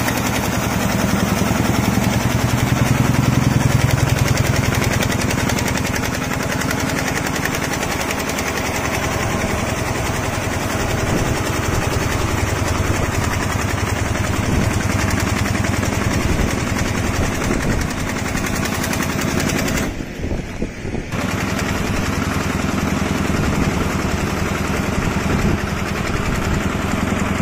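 Multi-head Richpeace quilting and embroidery machine running, its many needle heads stitching quilted fabric with a rapid, even mechanical rattle. The sound dips briefly about twenty seconds in.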